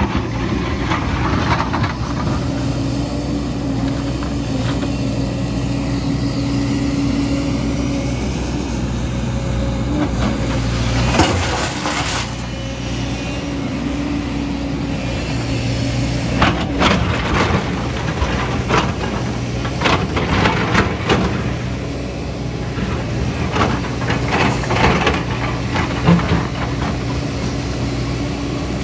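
Diesel excavator engine running steadily, with scraping and clanking from the bucket and rock in several bursts, the sound of digging and loading a dump truck.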